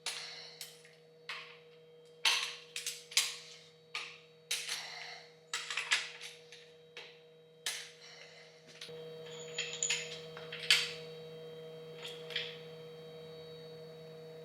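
Sharp metal clanks and clicks of hand tools and parts working loose a main bearing cap on a Chevy 454 big-block engine, a dozen or so strikes over several seconds. A steady hum comes in about halfway through, with a few lighter clicks over it.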